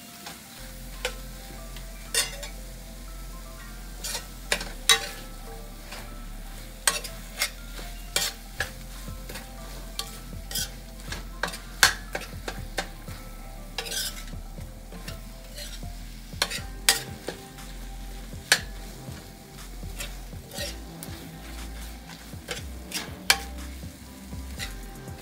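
Spice paste with lemongrass and kaffir lime leaves sizzling in a little oil in a stainless steel wok, stirred with a metal spoon that scrapes and clinks against the pan at irregular moments.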